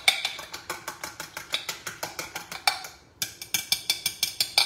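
A fork beating egg batter in a stainless steel bowl: rapid metal clinks, several a second, with a brief pause about three seconds in.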